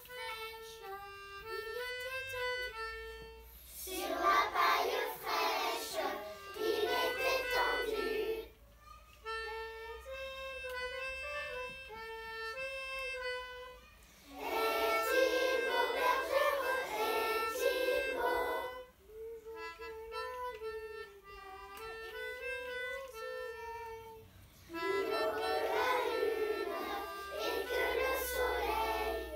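Children's class singing a song in unison over an instrumental backing track. Three sung phrases of about four seconds each alternate with instrumental passages in which a reedy wind instrument carries the melody on its own.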